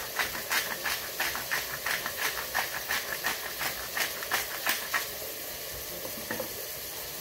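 Hand-held spice grinder being twisted, giving a quick run of crunching clicks, about three a second, that stops about five seconds in. A steady hiss from the steaming pot on the stove runs underneath.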